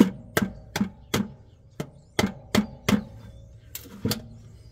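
Hammer blows, about two and a half a second with a short pause partway through and a last blow about four seconds in, each leaving a brief metallic ring: a hole being punched in the bottom of a spin-on oil filter to drain it before it is removed.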